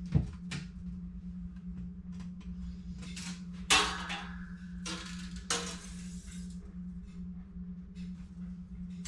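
A steel tape measure being handled: small clicks, then about 4 s in its metal blade and hook clatter against a steel panel radiator with a short metallic ring, and a second clatter a couple of seconds later. A steady low hum runs underneath.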